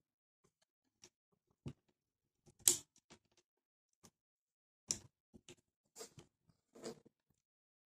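A scattered series of small clicks and clacks from a Crosman 2400-series airgun being handled between shots, the loudest about two and a half seconds in: the bolt being worked to cock the gun and load a pellet.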